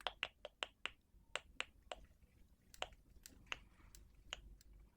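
A quick run of sharp, irregular clicks, about a dozen close together in the first two seconds, then a few scattered ones.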